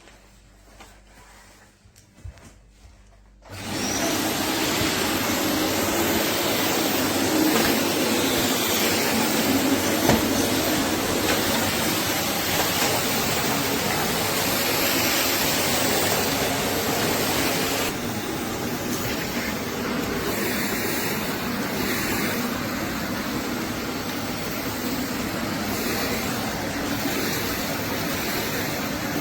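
Eureka WhirlWind bagless cylinder vacuum cleaner switched on a few seconds in after a few small clicks, then running steadily with a loud, even rushing noise. Its sound gets slightly quieter about eighteen seconds in.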